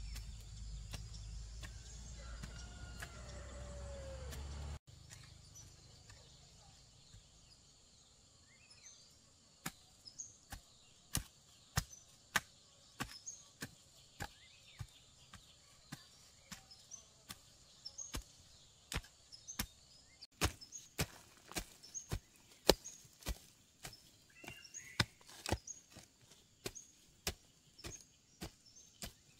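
A low rumble that cuts off abruptly about five seconds in, then a hand tool chopping, with sharp strikes about one or two a second. Faint bird chirps sound in the background.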